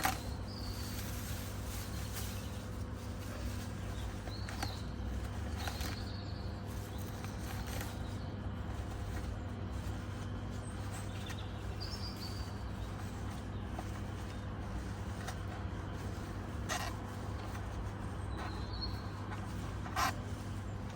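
A few sharp clicks and taps from handling the plastic vacuum cleaner head while hair is pulled off its brush bar by hand, with a few faint short squeaks, over a steady low hum.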